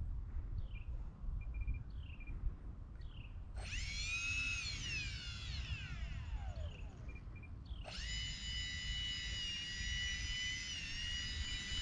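Electric ducted fans of an E-flite A-10 RC jet whining: throttled up suddenly, the pitch rises briefly and then glides down as they spool down, and a few seconds later they jump back to a steady high whine that holds. Short bird chirps, about one a second, come before the first run-up.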